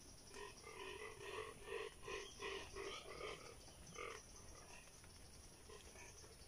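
A frog calling: a faint run of about eight short, pitched notes, roughly three a second, then one more note about a second later.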